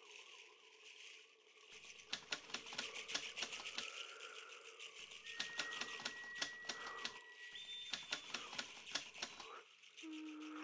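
Typewriter sound effect: three runs of rapid key clacks, each about two seconds long, with short pauses between them, over a faint steady tone.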